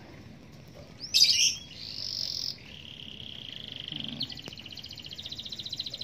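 Caged canary singing: a sharp loud call about a second in, a held high whistle, then trills, turning into a fast rolling trill from about four seconds in.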